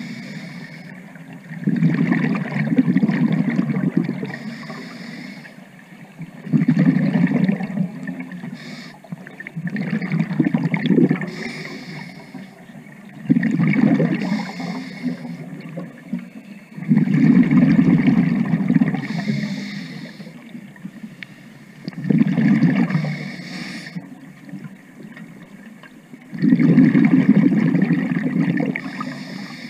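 Scuba diver's regulator breathing underwater: a bubbling exhalation rumble about every four to five seconds, seven in all, with a short hiss of inhalation between them.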